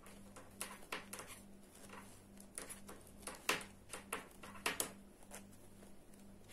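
Knitting needles clicking and scraping as stitches are worked off the needle: light, irregular ticks, roughly two a second.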